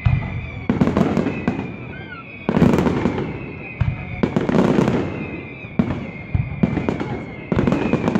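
Aerial fireworks going off in quick succession: about eight sudden loud bangs, each followed by about a second of dense crackling. A steady high tone runs underneath.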